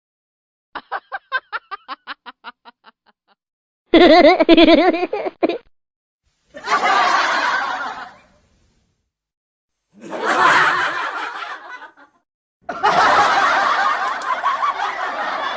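A series of separate recorded laughter sound effects, each cut off by dead silence. First comes a string of short, evenly spaced snickers that fade away, then three short bursts of laughter, and near the end a longer bout of laughter that keeps going.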